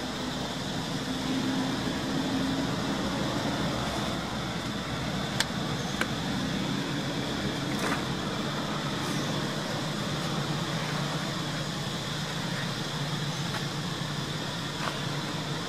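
Steady low hum of a motor over background noise, with a few faint light clicks around the middle.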